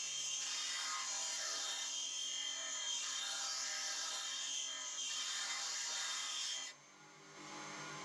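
Steel rod being ground on a Clarke 6-inch bench grinder wheel, a steady rasping grind that stops suddenly near the end, leaving the low hum of the grinder's motor.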